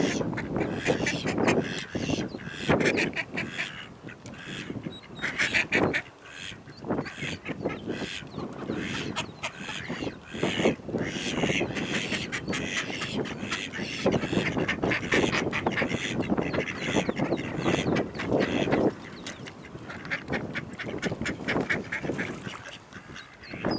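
Mallard hen quacking over and over in rapid runs of short, loud calls, easing off briefly a few seconds in and again near the end.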